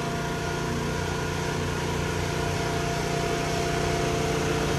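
Steady machine hum: something running at a constant speed, with a few fixed whining tones over a low drone. It grows slightly louder toward the end.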